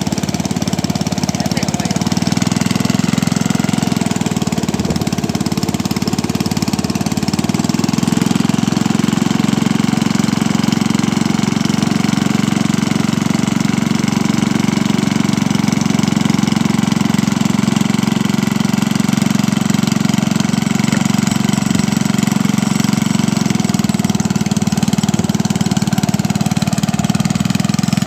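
Small boat engine running steadily, a constant hum that grows slightly louder about eight seconds in.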